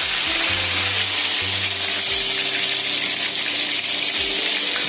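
Onion, garlic, ginger and green-chilli paste sizzling hard as it is spooned into very hot oil in a steel pan. A low, steady hum cuts in and out underneath.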